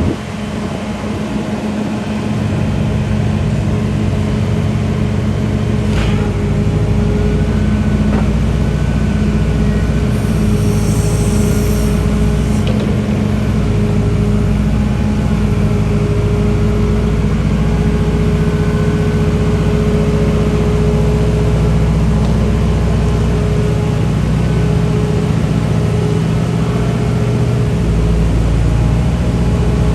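Liebherr A934C material handler's diesel engine running steadily, with a steady whine over the engine note. It builds up over the first couple of seconds, and a short high hiss comes about ten seconds in.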